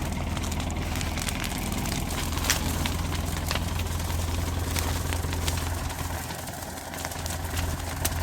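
Manitou telehandler's diesel engine idling steadily, with a few sharp pops breaking through now and then: the popping noise under investigation as a fault.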